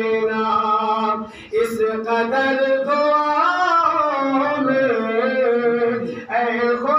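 A man singing a naat, drawing out long held notes that bend up and down in pitch, with short breaks for breath about a second and a half in and near the end.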